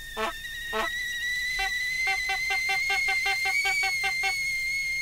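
Cartoon sound effects: a long held whistle tone that wavers slightly in pitch, with a quick run of short pitched blips, about five a second, through its middle.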